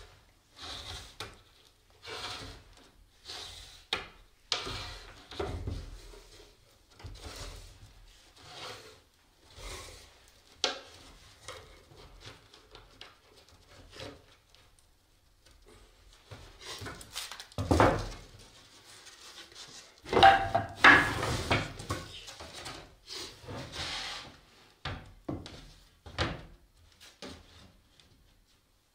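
Wood being handled and worked on a guitar soundboard joining jig: wooden blocks and wedges scraping, rubbing and knocking against the boards and bench as the binding cord is drawn tight, in a long run of irregular scrapes and knocks. The loudest scrapes come about two-thirds of the way through, with a short squeak among them.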